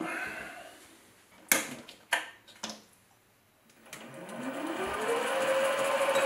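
A few sharp knocks, then the SC2 mini lathe's spindle motor starts about four seconds in, its whine rising in pitch as it comes up to speed and then running steadily.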